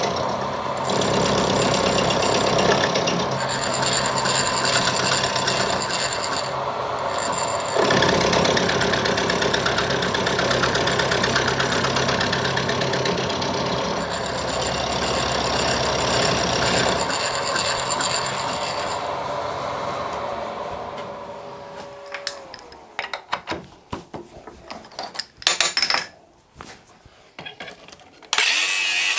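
Milling machine spindle running with a carbide end mill cutting the side of a metal workpiece in a vice. After about twenty seconds the machine is switched off and runs down with a falling whine, then a few clattering knocks. Near the end an angle grinder starts up against the work.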